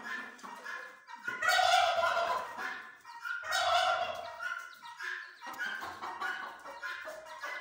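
Chickens calling: two loud, drawn-out calls about two seconds apart, each lasting about a second, then softer, shorter calls.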